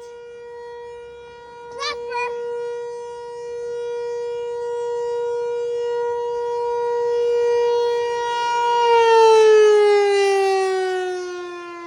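Outdoor civil defense warning siren sounding a steady tone during its noon test. It slowly grows louder, then from about nine seconds in its pitch slides steadily down as the siren winds down at the end of the test.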